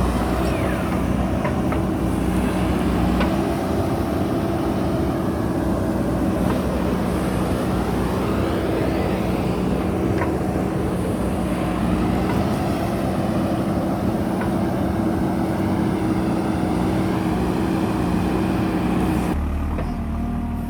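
JCB backhoe loader's diesel engine running steadily at working revs, with a few faint knocks. Near the end the engine sound changes abruptly and drops a little.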